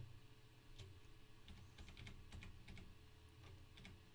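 Computer keyboard keys clicking faintly and irregularly, about ten keystrokes in short clusters, as text is edited.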